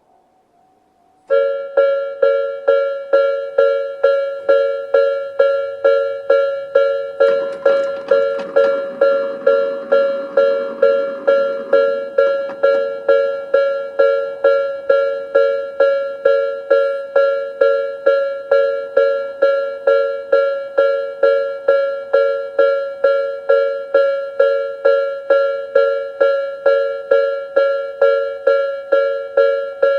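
Japanese railway level-crossing warning bell, the electronic Tobu-style 'sound B' ringing, starts abruptly about a second in and strikes about twice a second in a steady two-tone ding, the signal that a train is approaching. About seven seconds in, a rushing noise swells for several seconds beneath the bell.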